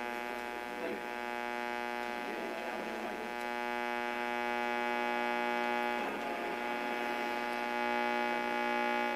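1970-74 Dodge AM push-button car radio sounding through its speaker with a steady buzzing hum and a faint voice underneath in the first few seconds. The hum changes about six seconds in.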